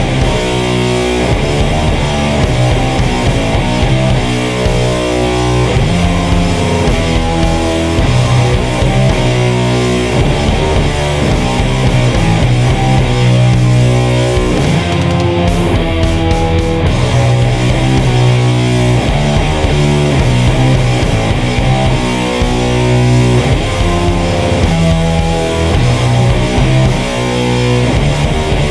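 Heavily distorted electric guitar playing a doom metal riff, with sustained low, fuzzy notes.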